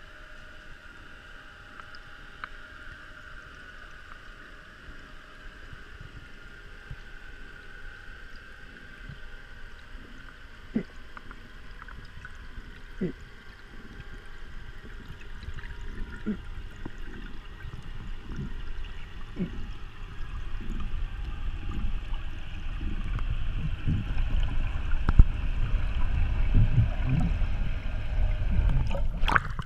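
Underwater sound heard through a camera's waterproof housing during a freedive ascent: a steady faint whine with a few sharp clicks, under a low rush of water flowing past the housing that grows louder from about halfway. Near the end a sharp splash as the housing breaks the surface.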